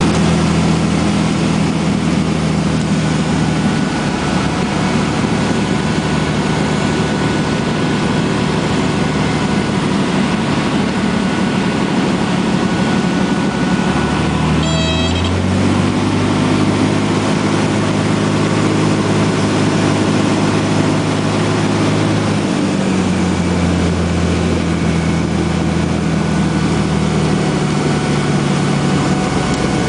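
Cessna 182's piston engine and propeller droning steadily over a loud rush of air and engine noise. About halfway through, the pitch steps up and holds for about eight seconds before dropping back, a change in engine and propeller speed. Just as the pitch rises there is a short high chirp.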